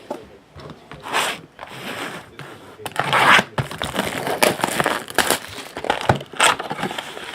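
Plastic wrapping on a box of baseball card packs being crinkled and torn open, in irregular crackling bursts that grow busier about three seconds in.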